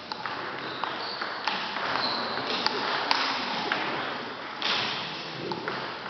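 Table tennis ball striking the bats and table in a rally: sharp clicks about twice a second for the first few seconds, then a brief rushing noise, and a few more scattered clicks near the end.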